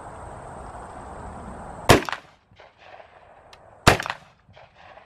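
Two rifle shots from a Smith & Wesson M&P15 firing green-tip 5.56 rounds, about two seconds apart, each followed by a few short echoing cracks.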